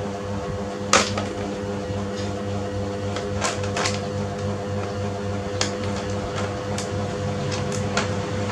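Scattered sharp taps and knocks, the loudest about a second in, as a macaque clambers over a plastic-and-metal toy baby walker and a kitten shifts under a clear plastic bag, over a steady hum.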